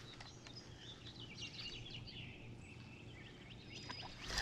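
Small birds chirping and calling in quick, short notes over faint steady background noise. A louder noise starts near the end.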